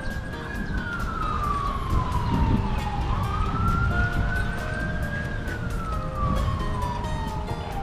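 Emergency vehicle siren wailing: the pitch rises, holds, then falls slowly, in two full cycles.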